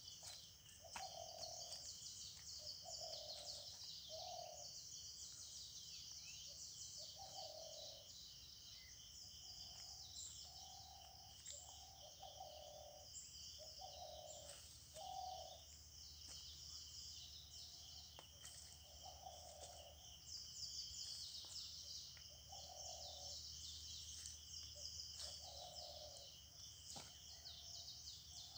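Faint forest birdsong: dense high chirping and twittering from many birds, with a low hooting call repeated every second or two.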